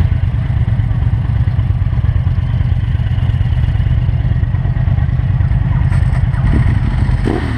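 Motorcycle engine running at low speed, a steady, loud, low pulsing.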